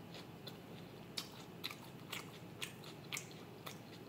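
A person chewing a mouthful of sauce-topped rice: soft, wet mouth clicks about twice a second, faint.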